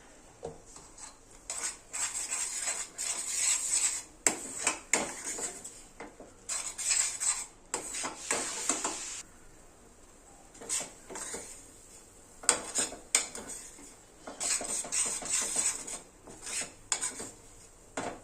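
A spoon scraping and clinking against a cooking pan in repeated bursts of stirring, with a few sharp knocks in between.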